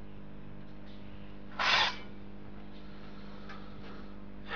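Steady low hum in the soundtrack, with one short hiss of noise about a second and a half in and a faint tick later.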